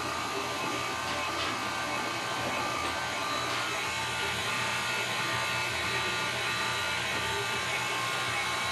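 Electric pasta machine motor running steadily, a constant hum as it drives the rollers.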